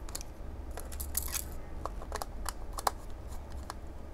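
Small screwdriver turning a screw in a PIR detector's plastic screw-terminal block, giving scattered light clicks and short metal-on-plastic scrapes, with a brief flurry about a second in.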